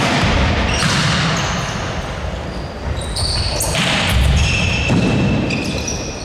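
Indoor ball game in a large, echoing sports hall: ball thuds and impacts, with short high squeaks of shoes on the court floor.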